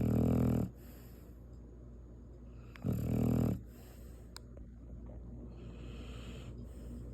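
Shar Pei dog snoring in its sleep: two loud snores, each well under a second and about three seconds apart, then a softer, airy breath.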